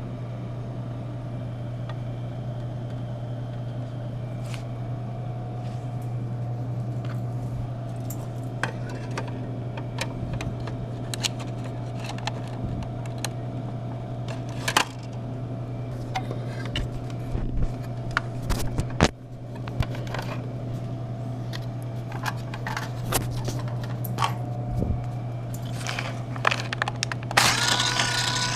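Coins and metal parts clinking, clicking and scraping as a vending machine is opened and emptied, over a steady low electrical hum. A denser rattle of coins comes near the end.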